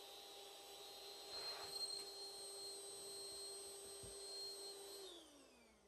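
Electric air blower inflating a SHOSU vinyl ride roll, running with a steady faint hum and whine. About five seconds in it is switched off, and the whine falls in pitch as the motor spins down and stops.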